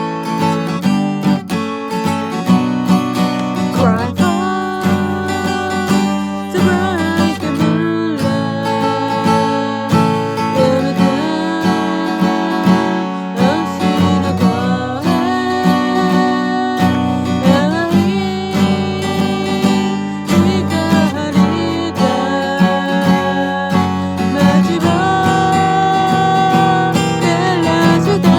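Acoustic guitar strummed steadily, with a voice singing a sustained melody over it that slides between notes.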